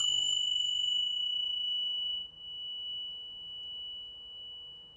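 A pair of tingsha (small Tibetan hand cymbals) struck together once, then a long, clear, high ring that fades slowly; the brighter overtones die out after about two seconds.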